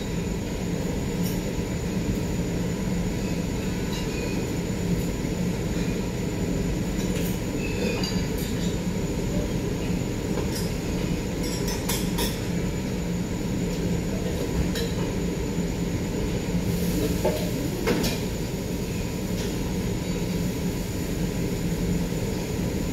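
Teppanyaki griddle cooking: scattered sharp clinks of metal spatulas over a steady low drone.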